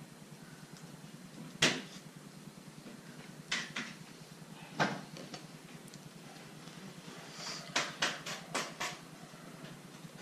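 Scattered light knocks and clicks of table knives against a plastic tub, crackers and a wooden tabletop while filling is spread on crackers, sharpest a little under two seconds in and several in quick succession near the end, over a steady low hum.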